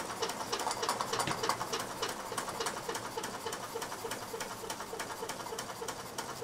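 Mamod SP8 "James Watt" toy steam beam engine running steadily under steam, ticking in a fast, even rhythm.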